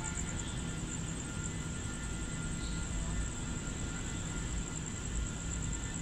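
Night ambience: a steady high, finely pulsing chirr of insects over a low steady rumble.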